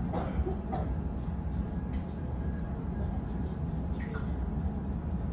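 Steady low rumble of airport gate background noise, heard from inside the terminal through the window glass, with a brief faint voice in the first moment and a couple of faint clicks.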